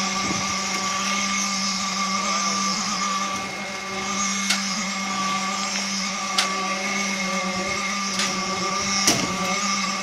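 Electric concrete pump running with a steady motor hum, while concrete is delivered through the hose. A few short sharp knocks stand out, a couple of seconds apart.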